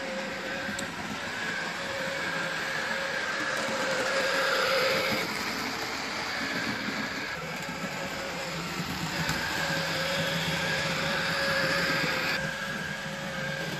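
Hornby OO gauge model train running round the layout: the locomotive's small electric motor hums and the wheels rattle on the track. It swells louder twice as the train passes close.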